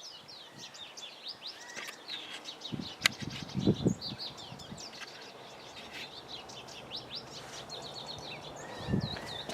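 Small birds chirping over and over, a rapid run of short high twitters, with a sharp click about three seconds in and a couple of low thumps.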